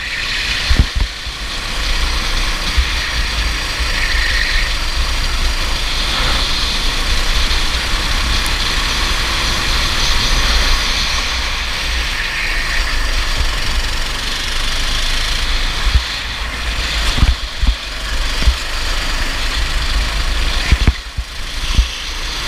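Racing kart engine running at speed on track, heavily mixed with wind buffeting on the microphone. A few sharp knocks come in the last few seconds.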